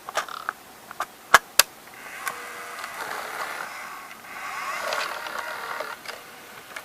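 Several sharp clicks, then the small motors of a Sony CCD-TR70 8mm camcorder whirring in two spells as the head drum spins up before the tape loads.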